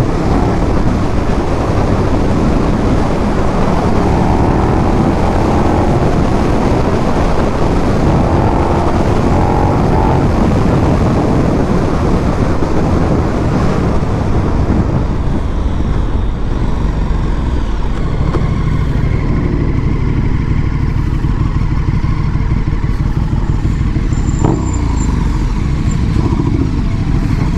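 KTM 1290 motorcycle running on the move, its engine note under heavy wind rush. About halfway through, the wind rush drops away and the engine settles to a steadier low note.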